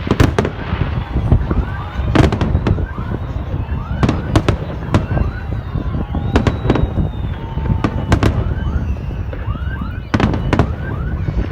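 Aerial fireworks bursting: repeated sharp bangs and crackles over a continuous low rumble of further explosions.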